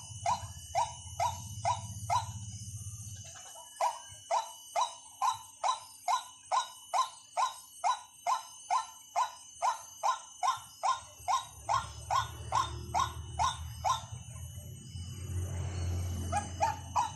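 White-breasted waterhen lure call: a quick, even string of sharp 'kwak' notes, about three a second, with a short break about three seconds in, stopping about fourteen seconds in with a few more notes near the end. A low rumble sits under it at the start and again in the last few seconds.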